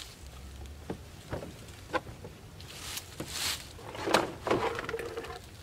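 Handling noises as a chainsaw is taken out of a hard plastic case: several sharp clicks and knocks, a brief rustle, then a few clunks and a short scrape about four seconds in.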